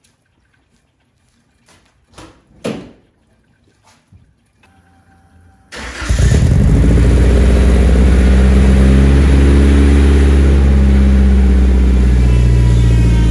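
A couple of thumps, then the Nissan 240SX's engine cranks and starts about six seconds in and settles into a loud, steady idle through its ISR single GT exhaust with freshly sealed gaskets and a new muffler. A whine rises near the end, which the owner takes for a belt that needs replacing.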